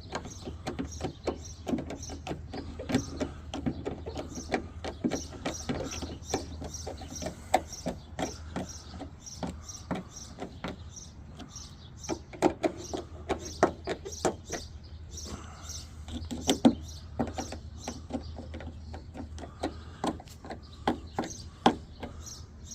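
Hand tool driving the T27 Torx screws that hold a truck door latch in place: a run of light, fairly regular clicks with scattered knocks and taps of metal against the door, over a steady low hum.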